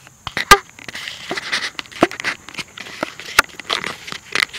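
Irregular crackles, rustles and sharp knocks right at a small camera's microphone, typical of the camera being handled and jostled, with the loudest knock about half a second in. No motor is running.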